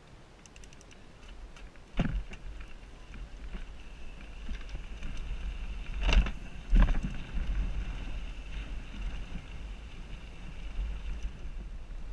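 Mountain bike riding on a trail, heard through a helmet-mounted action camera: wind rumbling on the microphone and tyres rolling over dirt, with a sharp knock about two seconds in and two louder jolts close together around six and seven seconds.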